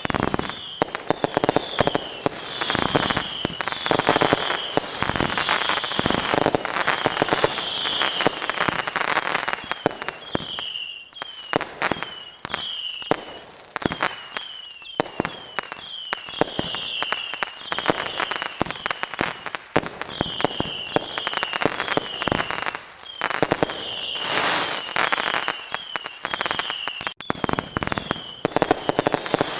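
Fireworks going off in quick succession: many sharp bangs and crackling pops, with short high-pitched falling whistles recurring throughout.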